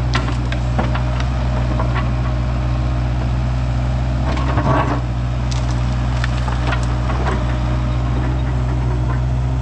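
Excavator's diesel engine running steadily while wood cracks and splinters under the machine, with scattered snaps and a denser burst of cracking about halfway through.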